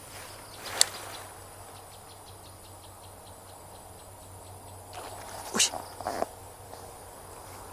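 Baitcasting reel being handled: one sharp click about a second in, then a fast, even light ticking for about four seconds as the reel is wound in, with two louder clicks near the end.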